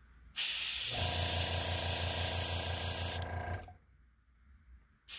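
Gravity-feed airbrush spraying paint: a loud hiss of air starts about half a second in and cuts off after about three seconds, then starts again near the end. A small compressor motor hums underneath from about a second in, stopping just after the hiss.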